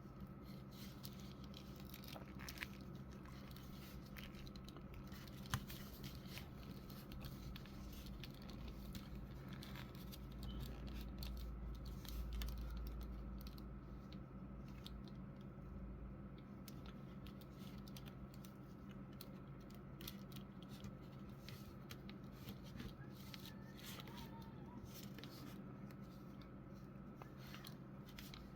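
Quiet handling of a plastic action figure: scattered small clicks and rubbing as its joints are moved and it is set down to stand, over a steady electrical hum.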